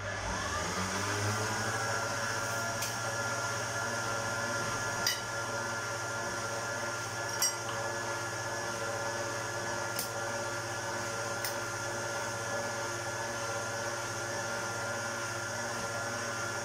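Stand mixer's electric motor running steadily, beating milk with yeast, oil, water and an egg in its steel bowl. Its whine rises as it spins up at the start, with a few faint clicks over the steady hum.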